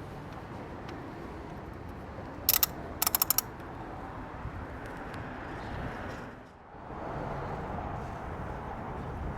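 Sharp metallic clicks over steady background noise: one click, then half a second later a quick run of about five.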